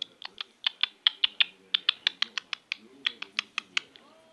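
Budgerigar making a fast run of sharp beak clicks, about five a second, that stop shortly before the end.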